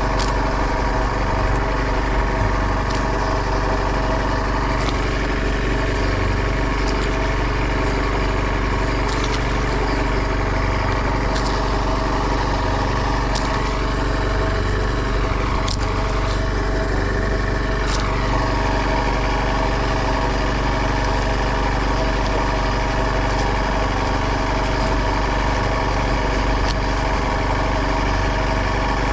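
Small fishing boat's engine running steadily at constant speed, with a few faint clicks over it.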